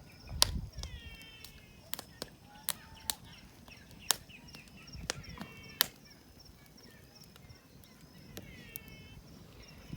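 Wood bonfire crackling, with sharp irregular pops. Birds call several times in short runs of falling notes, over a faint steady high insect trill.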